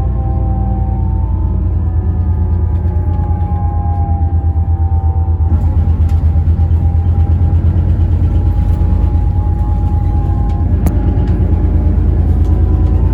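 Daewoo FX116 coach's diesel engine running under way, a deep, pulsing rumble with a faint whine that slowly rises and falls in pitch. About halfway through, added road and wind hiss comes in, and there is a single short click near the end.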